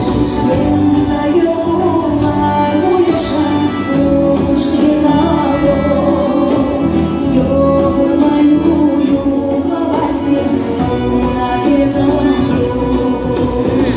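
Music with singing over instruments, playing steadily.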